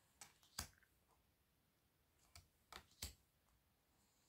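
Oracle cards being flipped and laid onto a pile: about five faint, sharp clicks in two groups, near the start and again around the middle.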